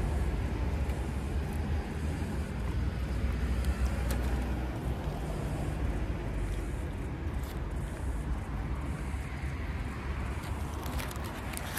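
Steady low rumble of distant road traffic with a few faint clicks.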